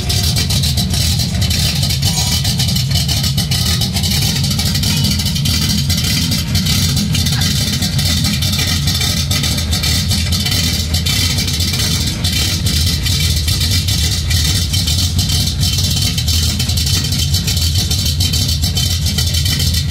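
Cammed Ford 351 V8 running at a steady idle through a tacked-together 2.5-inch exhaust with an X-pipe and a Cherry Bomb Extreme muffler, heard from underneath the truck. It is the first run to hear the new exhaust's sound.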